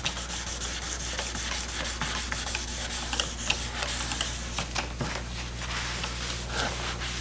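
Bronze strip being hand-sanded with oiled 1000-grit wet-or-dry paper: a steady scratchy rubbing made of many quick short strokes. This is the finer-grit polishing step that raises the metal's luster.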